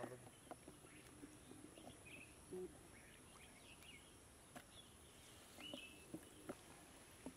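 Quiet rural outdoor ambience: a steady high-pitched insect drone, a few short bird chirps and scattered small clicks and taps.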